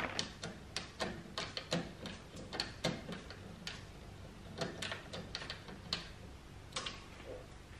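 A series of faint, irregular light clicks and taps, a few a second.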